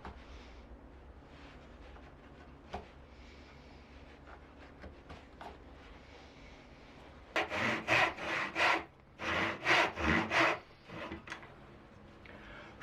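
A hand tool worked in strokes on wood: faint scraping at first, then a loud run of about eight quick strokes, around three a second, followed by a few lighter ones.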